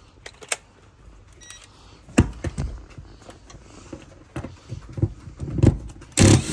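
Scattered clicks and knocks of hands and a tool working in a car footwell, then a cordless impact driver starts up loudly near the end, running a socket on a rear-seat mounting bolt.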